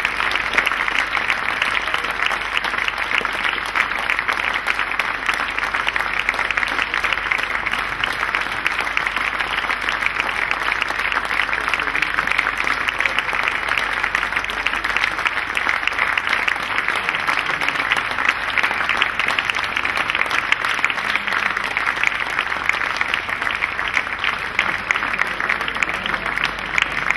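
Audience applause: dense, steady clapping from a large crowd that holds through the whole stretch.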